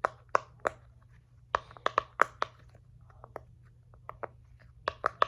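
Heart-shaped silicone pop-it fidget toy having its bubbles pressed one after another: a string of sharp, irregular pops, several in quick succession, with fainter ones in the middle.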